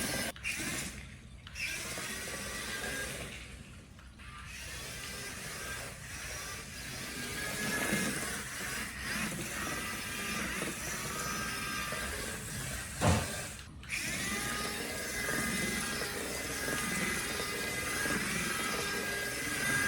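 Small DC motors of a homemade RC car whining, their pitch wavering as it drives, over background music. A single sharp knock comes about 13 seconds in.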